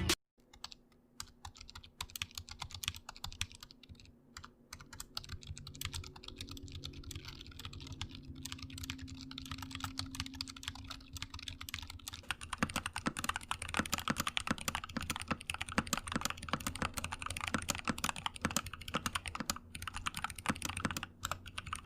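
Fast typing on a membrane keyboard with soft, muffled key presses, then about twelve seconds in fast typing on a mechanical keyboard with louder, sharper clicks.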